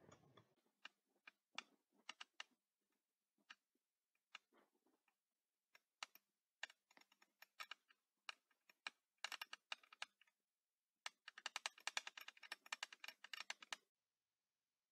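Glass stirring rod clinking against the inside of a small glass beaker as a calcium chloride and sodium carbonate mixture is stirred. Scattered light clicks come thick and fast for a few seconds near the end, then stop.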